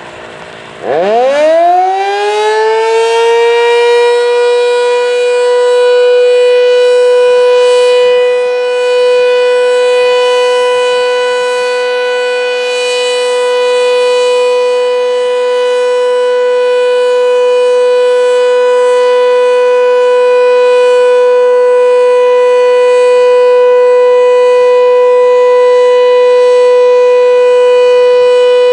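Sentry 7V8-B outdoor warning siren starting up about a second in, winding up in pitch over a few seconds and then holding one steady, loud tone: the start of a steady alert signal.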